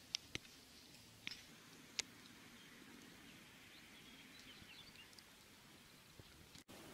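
Near silence, with a few sharp ticks in the first two seconds and faint bird chirps around the middle.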